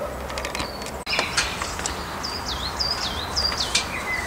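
A songbird singing outdoors: a phrase of about four alike whistled notes, each swooping down in pitch, with other short chirps around them. There are a few faint clicks in the first second.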